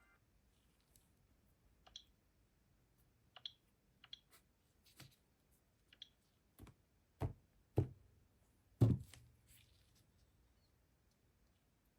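About ten scattered light clicks and taps from a smartphone being handled, the three loudest, past the middle, with a dull knock to them.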